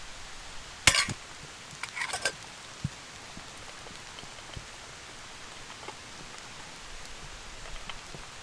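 Steady rain pattering on a canvas tent. A sharp click comes about a second in, and a quick cluster of clicks follows around two seconds in.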